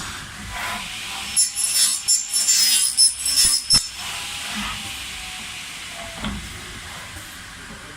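PVC window-frame processing machinery cutting and scraping plastic: a run of sharp scraping strokes with a high whine from about a second and a half to nearly four seconds in, typical of the corner-cleaning cutters working a welded PVC profile, then a quieter steady machine hiss with a few knocks.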